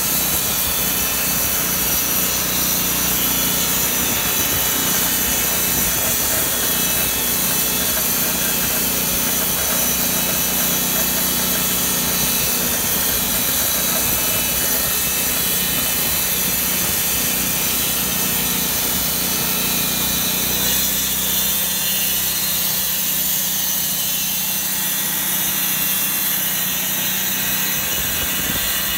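Wood-Mizer LT40 portable band sawmill running steadily, its engine under load as the band blade saws a log into boards. The sound thins slightly about two thirds of the way through.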